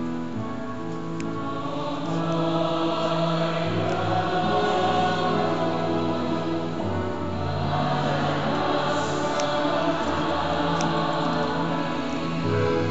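Choir singing a slow hymn in long, held notes.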